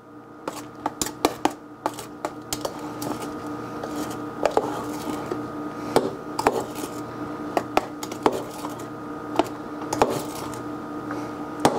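A utensil stirring and folding egg-white whipped cream by hand in a tall plastic blender cup, with irregular taps and scrapes against the cup, a few a second. A steady hum runs underneath.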